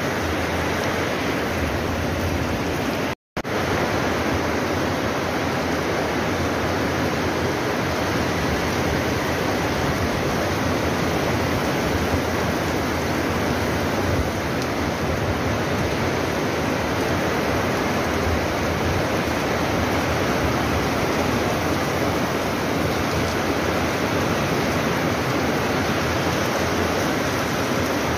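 Heavy tropical rain pouring down in a steady, loud hiss. The sound cuts out for a split second about three seconds in.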